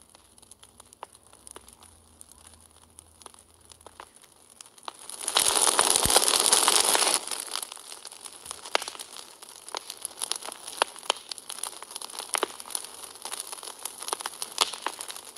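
Wood fire crackling: irregular sharp pops and snaps over a faint hiss, with a loud rushing noise for about two seconds near the middle.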